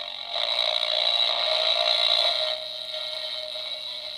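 Garbled, distorted music from the small speaker of an infrared laser-link receiver kit, the song only just recognisable as it comes through the light beam. It drops noticeably in level about two and a half seconds in.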